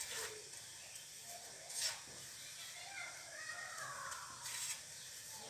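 A hand crumbling and stirring coarse salt in an aluminium pot: a few short gritty rustles of salt grains, near the start, about two seconds in and near the end.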